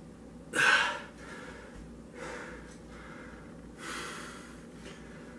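A man breathing hard after a feat of strength: one loud sharp exhale about half a second in, then two softer breaths.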